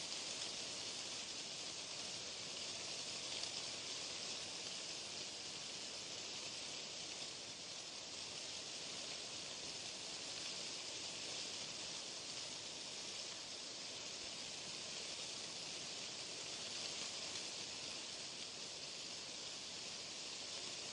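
Steady white-noise hiss, brightest in the upper range, unchanging throughout.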